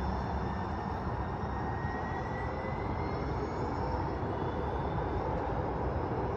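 Electric light rail train pulling away: a steady rolling rumble with a faint motor whine that rises slightly in pitch about two seconds in as the train picks up speed.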